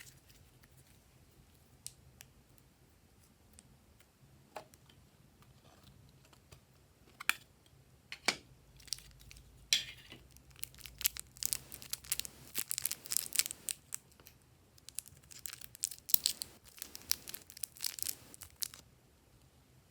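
Glossy slime being squished and stretched by hand, making sticky clicks and crackles. There are a few scattered clicks at first, then dense runs of crackling in the second half.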